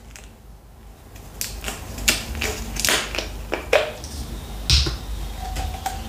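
A run of sharp clicks and light taps, close to the microphone, as a freshly opened glass bottle of lemonade and its cap are handled; the loudest tap comes a little before the end.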